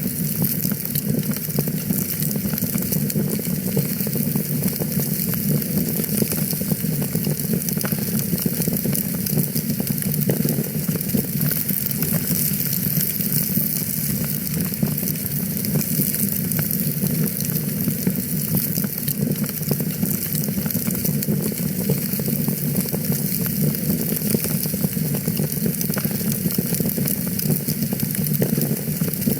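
Wood fire in a fireplace crackling steadily, with a dense run of small pops and snaps over a low rumble of the flames.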